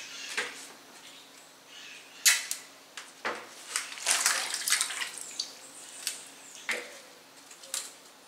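Sweet potato leaves being dropped and pressed down into a bowl of water to soak: a series of short splashes and wet leaf rustles, the loudest about two seconds in.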